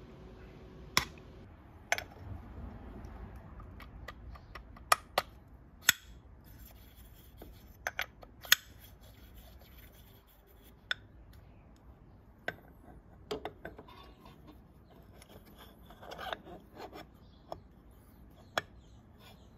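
Metal parts of a scooter's variator clinking and scraping as they are handled and slid onto the crankshaft: a scattered series of sharp clicks, with a short stretch of rubbing a few seconds before the end.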